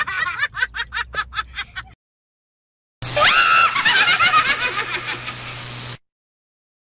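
Two laughter sound effects, each cut off sharply, with about a second of silence between them: first rapid, rhythmic bursts of laughter that stop about two seconds in, then a high-pitched laugh of quick pulses over a steady low hum, opening with a rising squeal and ending suddenly about six seconds in.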